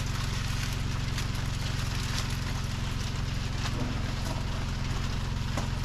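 Water running from a kitchen tap while hands are washed, over a steady low mechanical hum.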